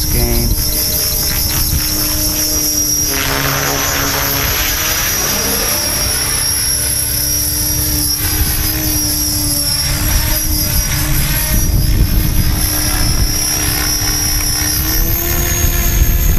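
HobbyKing HK-600 electric 600-size RC helicopter in flight: a steady whine from its electric motor and rotor, with a high-pitched motor whine over it. The pitch steps up about fifteen seconds in.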